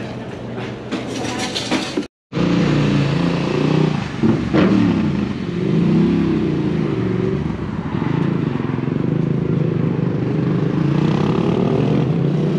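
Suzuki GSX-R sport bike engine running under way, its pitch rising and falling as the revs change, over wind rush. There is a short silent gap about two seconds in, before the engine note comes in loud.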